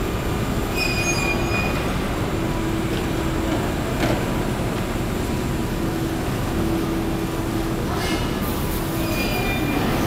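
Electric commuter train running on the rails, with a steady rumble and hum. Short high wheel squeals come about a second in and again near the end.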